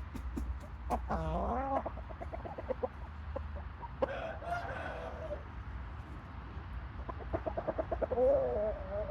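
Shamo rooster clucking and calling: short calls that rise and fall in pitch about a second in and around four seconds, with quick runs of clucks between them, and a fast run of clucks leading into another call near the end.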